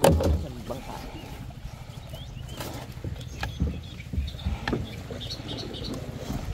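Knocks and thumps on a small boat, the loudest right at the start and a few more near the middle, over a low steady rumble.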